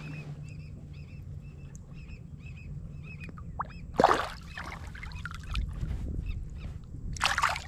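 A bird calling over and over in short, high, evenly spaced calls, with water splashing twice, the louder splash about four seconds in.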